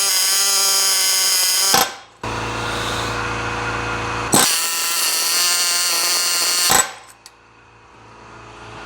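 Pneumatic air hammer buzzing in two long bursts, the first ending about two seconds in and the second lasting about four and a half seconds, driven against the top of a piston to try to free a seized GM 3.6 V6.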